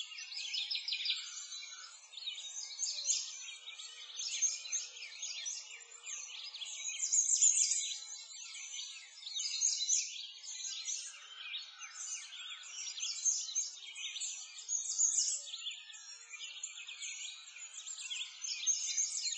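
A dense chorus of many small birds chirping and twittering, the quick calls overlapping without pause and swelling and fading in loudness.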